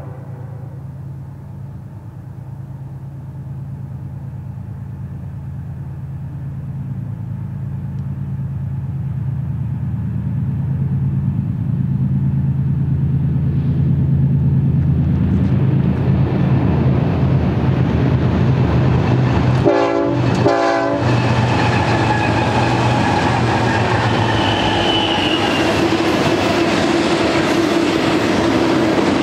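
BNSF GE ES44C4 diesel locomotives approaching, the last of a horn blast cutting off at the start, then the engines' low drone growing steadily louder. Double-stack intermodal cars then roll past with steady wheel-on-rail noise and a brief high squeal.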